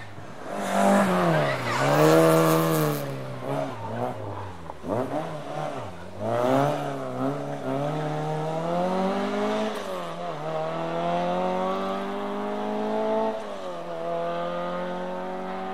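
Rally car engine taking a chicane, its pitch rising and falling several times as it brakes and turns. There is a burst of hiss from tyres near the loudest point, a second or two in. It then accelerates away in a long rising pull with a gear change near the end.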